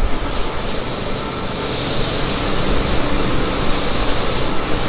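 Farm machine engine running steadily, with a rushing hiss that grows louder from about two seconds in.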